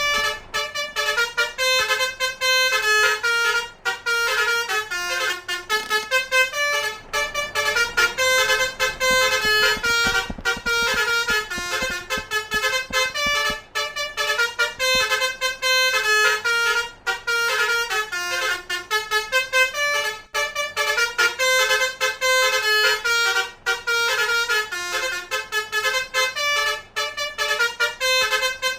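Basuri telolet multi-tone bus horn playing a quick melody, note stepping to note without a break.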